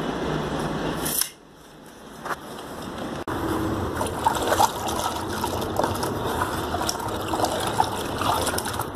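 Wet cement mix being stirred and worked by hand in a plastic bucket: irregular small wet splashes and clicks over steady background noise.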